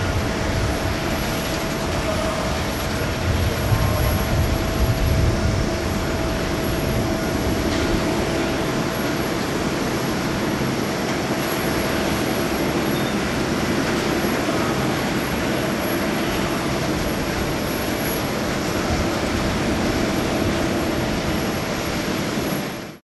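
Boeing 747-8's four GEnx turbofans running at taxi power: a steady jet hum with a faint whine in it, fading out at the very end.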